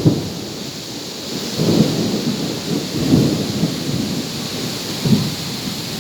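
Strong gusty wind buffeting the microphone: several low rumbling gusts come and go over a steady hiss.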